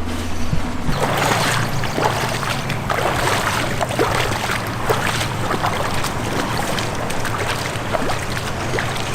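Rushing river water and splashing, with a steady low hum underneath that starts about half a second in.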